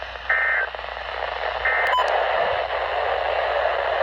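Emergency Alert System SAME end-of-message data bursts: two short, buzzy digital chirps of rapidly alternating tones, about a second and a half apart, marking the end of the alert. A click follows about two seconds in, then a steady radio static hiss.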